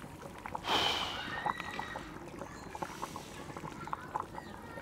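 Heavy lid lifted off a pot of simmering stew, with a short scraping rush and a faint ring about a second in, followed by the stew bubbling with small scattered pops.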